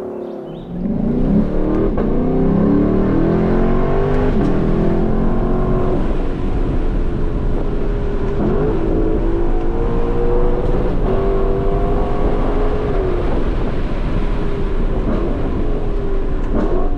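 Lexus LC 500's naturally aspirated 5-litre V8 pulling hard, revs climbing and dropping several times as it shifts gears, with a steadier stretch in the middle.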